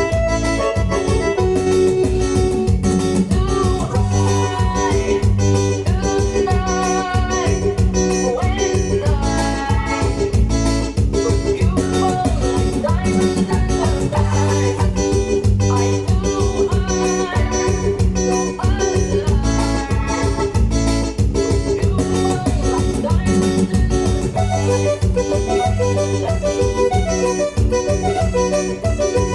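Forró music with a fast, steady beat, heavy bass and a keyboard melody over it.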